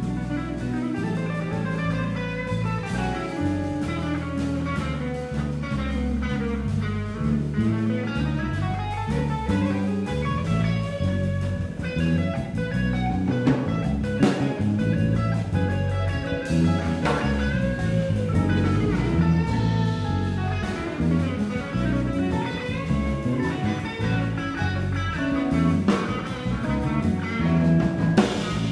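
Small jazz band playing: a semi-hollow electric guitar plays quick single-note lines with some bent notes over a moving bass line and drum kit.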